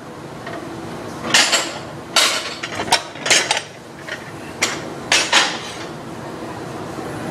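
Dishes and cutlery clattering and clinking as they are handled during washing up: several sharp clatters, some in quick pairs, over a steady background hiss.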